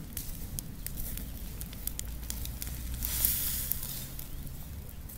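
Pile of dry leaves burning, crackling with scattered sharp pops, with a brief rushing hiss about three seconds in.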